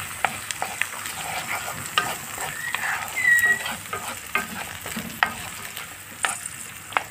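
Shelled broad beans and chopped onion sizzling in oil in a nonstick frying pan, stirred with a wooden spatula that clicks and scrapes against the pan many times. A brief high squeak sounds about three seconds in.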